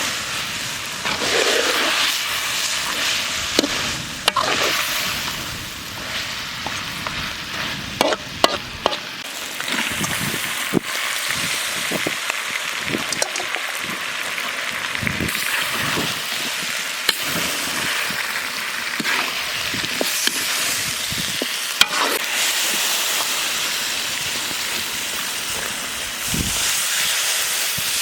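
Food frying, with a steady sizzle and scattered clicks and knocks of it being stirred.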